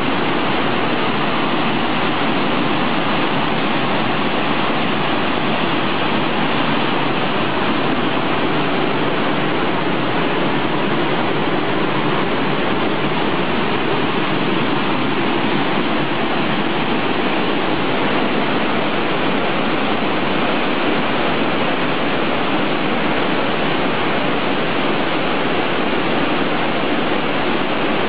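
A small stream cascading over limestone rocks, giving a loud, steady rush of falling water.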